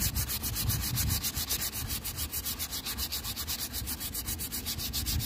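Sandpaper rubbed by hand along a newly made wooden axe handle, rasping in fast, even back-and-forth strokes.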